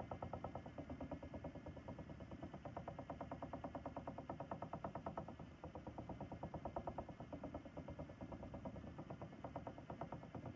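Ashford e-Spinner electric spinning wheel running, its motor and turning flyer giving a steady whirr with a fast, even pulse.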